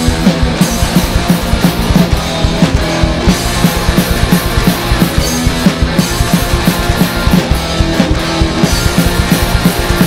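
A rock band playing loud punk-style music live: a drum kit with Zildjian cymbals keeping a steady beat under guitar.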